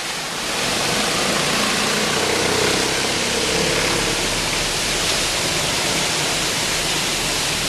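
A pressure-washer surface cleaner, turned upside down as an undercarriage washer, blasting high-pressure water jets from its spinning spray bar up against the underside of a pickup truck. It makes a steady, loud hiss.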